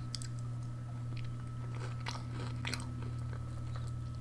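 Scattered small crisp crackles of a KitKat wafer being picked apart and chewed, over a steady low hum.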